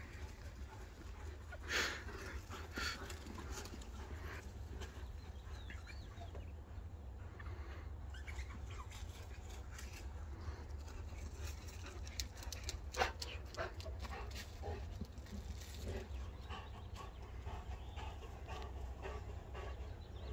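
Quiet outdoor ambience over a steady low rumble, with a few short, faint sounds from two dogs at play, the loudest about two seconds in and again about thirteen seconds in.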